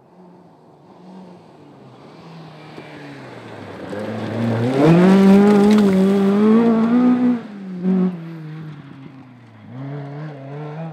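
Rally car engine at full throttle as the car approaches, the note climbing in pitch and loudest about five seconds in. It then breaks off and drops as the driver lifts and changes gear, fades as the car moves away, and picks up again near the end.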